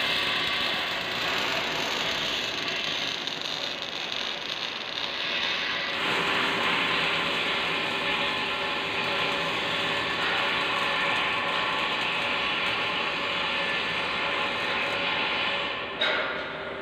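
Wire-feed welding arc crackling steadily, with a shift in its tone about six seconds in and a short break near the end.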